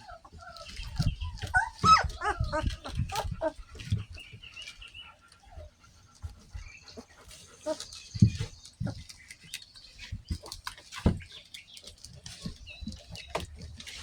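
Two-week-old puppies squeaking and whimpering as they wake and go for their mother, with a cluster of squeals in the first few seconds. Soft thumps and rustling from the litter moving in its bedding run through the rest.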